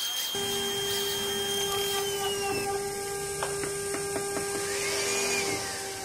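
CNC router spindle running with its bit cutting into a wooden door panel: a steady machine whine with a few short clicks near the middle.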